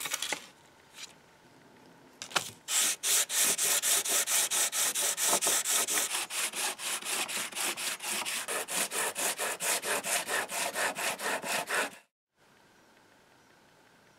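Cast-iron foot bolt plate rubbed back and forth by hand on a sheet of sandpaper laid flat on a board, a steady scraping of about four strokes a second that stops suddenly near the end. A sharp knock comes at the very start.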